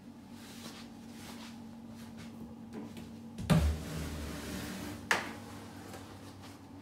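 A glass bath screen being moved: a sharp click, about a second and a half of sliding or scraping, then a second click as it stops.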